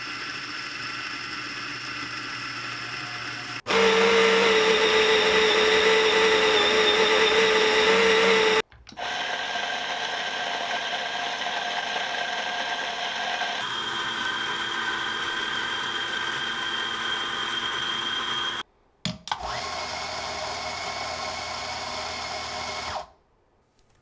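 Five electric espresso grinders grinding coffee beans one after another, each a steady motor-and-burr whir lasting about five seconds: Eureka Mignon Facile, Baratza Sette 270, Ceado E5Pro, Eureka Oro Mignon Single Dose and Ceado E37S. The Baratza Sette 270, second in line, is by far the loudest, with a strong low hum. The Ceado E37S, last, is the quietest.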